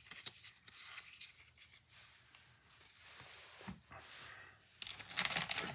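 Pokémon trading cards being handled and set down on a playmat: faint card slides and light taps. About five seconds in, a louder crinkling starts, the foil wrapper of the next booster pack being handled.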